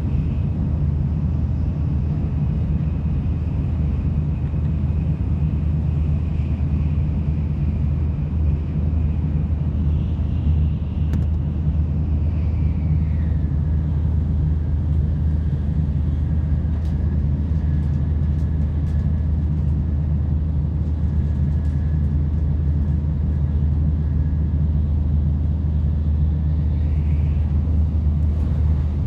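Cabin noise inside a Tokaido Shinkansen N700 series Nozomi running at high speed: a steady low rumble, with a faint whine that drops in pitch about twelve seconds in and climbs again near the end.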